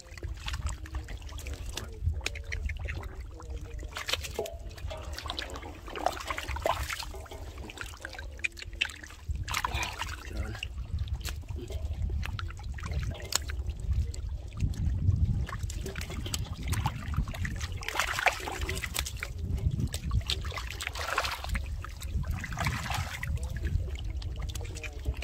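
Shallow floodwater splashing and sloshing in irregular bursts, over a steady low rumble.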